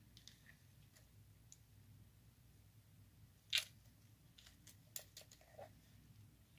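Faint, scattered handling clicks and taps, with one sharper click about three and a half seconds in and a few smaller ones a little later, over a low steady hum.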